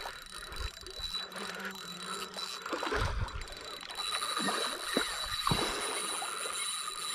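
Baitcasting reel being cranked as a topwater spook lure is walked back across the river surface, with small splashes and a few low knocks. A thin, steady high-pitched whine runs underneath.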